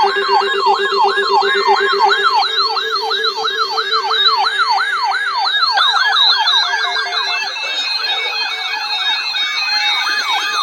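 Weather radio alert sirens sounding for a tornado alert, sweeping up and down rapidly at about two and a half sweeps a second over a pulsed beeping tone. About six seconds in, a second siren joins out of step with the first.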